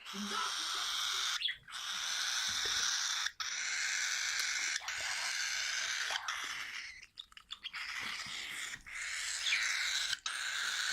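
Hand-fed baby parrots making a continuous hissing begging noise as they take hand-feeding formula, broken by short pauses about every second and a half.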